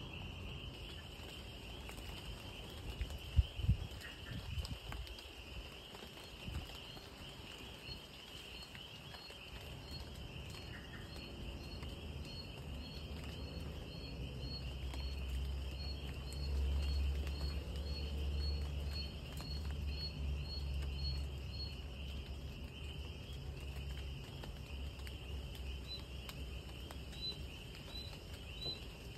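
Night insects, crickets, trilling steadily, joined from about a third of the way in by a second insect chirping about twice a second. A few low bumps come early on, and a low rumble swells in the middle.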